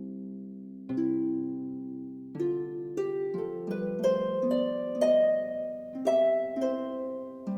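Soft instrumental background music: plucked chords and a slow melody, each note starting sharply and ringing away.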